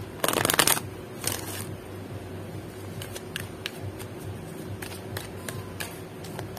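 Deck of oracle cards being shuffled by hand: a loud riffle just after the start and a shorter one about a second later, then scattered light clicks and taps of cards as the deck is shuffled overhand.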